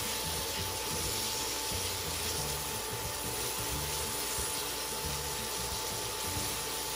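Shrimp, onion and garlic sizzling in oil in a nonstick pan on an induction cooktop, with tongs stirring and scraping through them; a steady hiss, with a thin steady whine underneath.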